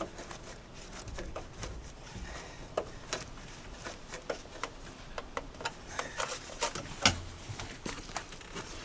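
Scattered small clicks and knocks of a screwdriver and gloved hands working at a truck's metal cab door, with a heavier thump about seven seconds in.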